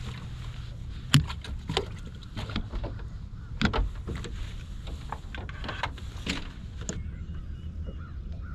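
Clicks and knocks of fishing gear being handled on a bass boat's deck, the loudest about a second in and again near four seconds, over a low steady rumble.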